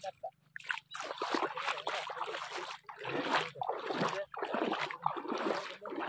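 Bare feet splashing through shallow water, then water trickling and dripping off a freshly hauled cast net, in short irregular splashy bursts.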